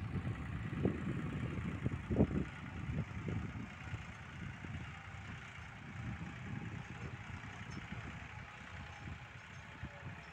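Massey Ferguson tractor engine running faintly as it pulls a loaded trailer, under a steady hiss. Wind buffets the microphone in irregular low thumps over the first few seconds.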